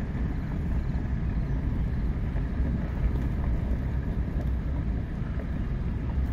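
Steady low rumble inside a vehicle's cabin as it drives slowly along a gravel road: engine and tyre noise.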